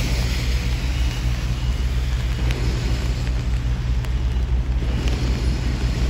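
Road traffic on rain-soaked pavement: cars driving past with tyre hiss over a steady low rumble.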